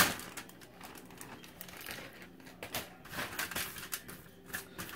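Green beans being spread by hand across a foil-lined baking sheet into a single layer: irregular light clicks and crinkles of the aluminium foil.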